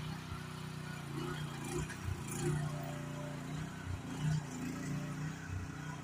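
Small mini excavator engine running steadily while it works, with several short clunks as the log grapple handles wood.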